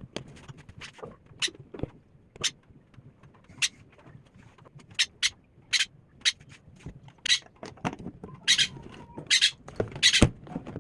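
A run of irregular sharp clicks and taps, about fifteen to twenty of them, of tools or parts being handled and knocked together. A brief faint tone is heard about eight and a half seconds in.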